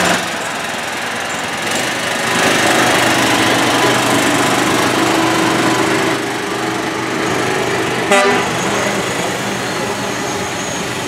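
Small engine of a motorised rail cart running steadily. A brief, louder blip comes about eight seconds in.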